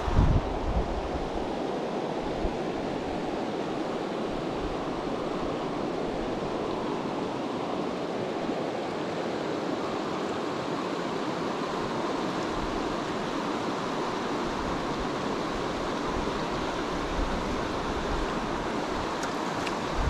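Mountain stream rushing steadily over a shallow, boulder-strewn riffle, an even wash of water noise. A couple of brief low thumps on the microphone in the first second.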